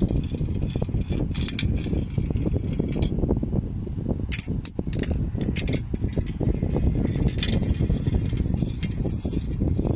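Marbles rolling down a marble run track: a continuous rolling rumble full of small clicks, with sharper clacks of marbles striking each other or the track a few times.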